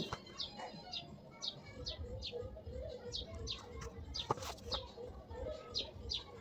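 A small bird chirping over and over, short high downward chirps about two to three a second, with a couple of sharp clicks.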